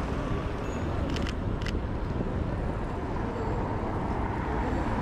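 Steady city street noise of traffic and rain, with the Sony A7IV's shutter clicking about a second in and again half a second later.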